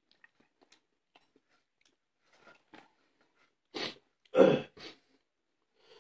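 Faint clicks and small eating noises, then about four seconds in a person clears the throat in three quick harsh bursts, the second one the loudest.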